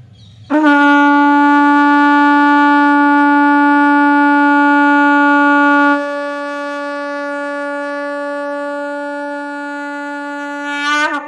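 Vamavarti shankh (conch shell) blown in one long, steady, loud note that begins about half a second in. About halfway through the note drops to a softer level and holds, then wavers in pitch and breaks off near the end.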